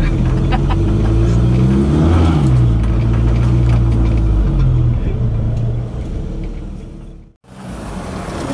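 Off-road 4x4's engine pulling along a dirt trail, its pitch rising and falling with the throttle. It fades out about seven seconds in, and after a brief silence another engine comes in.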